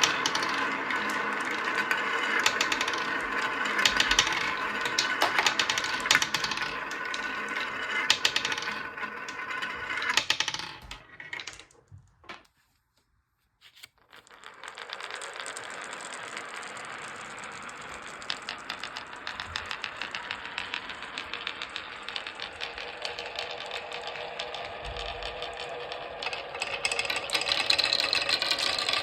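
Marbles rolling and clattering down a wooden marble run, a dense run of clicks and rattles. It breaks off for about two seconds near the middle, then a steadier rolling rattle resumes and grows louder near the end.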